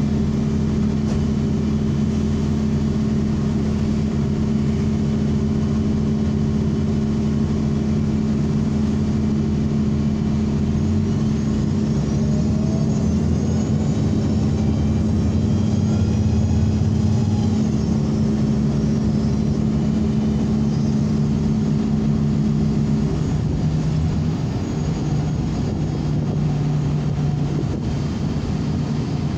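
An ENC transit bus's engine and drivetrain heard from inside the cabin: a steady low drone whose pitch shifts about three quarters of the way through, with a faint high whine rising and falling in the middle.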